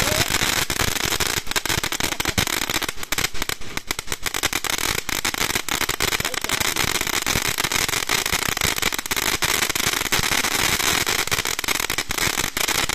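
Lesli Cranky Cactus firework fountain burning: a steady rushing hiss of sparks with dense crackling throughout.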